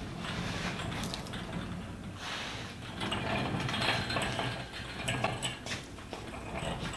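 Red one-ton shop engine hoist being worked and moved with a lathe part hanging from its boom: uneven mechanical rattling and creaking from the steel frame and casters.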